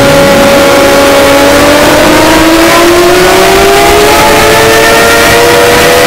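Deliberately overdriven emergency-alert alarm sound, clipped to full loudness and buried in harsh static-like distortion. Several tones rise slowly in pitch through it, like a siren winding up.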